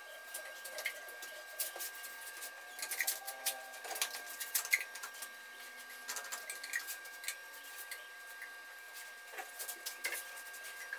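Glue being poured onto and spread over upholstery foam: soft irregular scrapes, rubs and small clicks. A faint steady high whine runs underneath.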